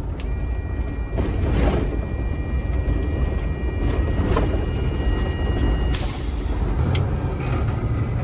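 Steady low rumble of a semi truck's engine and drivetrain heard from inside the cab while driving on the highway, with a thin high tone for the first six seconds or so.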